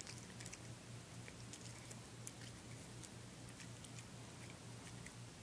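A tabby cat chewing and biting a slice of raw zucchini: faint, irregular crunchy clicks, over a low steady hum.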